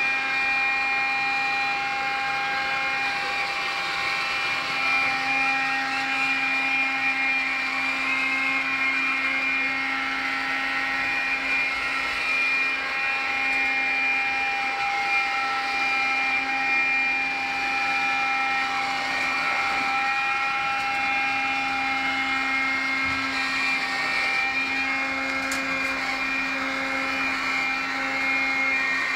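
iRobot Scooba floor-washing robot running: its brush and wet-vacuum motors give a steady whine with several held tones over a low hum, which fades and comes back a few times as it works.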